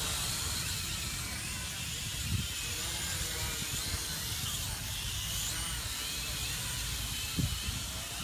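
Small quadcopter drone's electric motors and propellers whirring steadily, with a faint wavering high whine over a low rumble.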